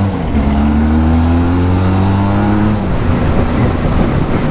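Motorcycle engine accelerating under way, its pitch climbing steadily, then dropping off about three seconds in, after which rough wind and road noise take over.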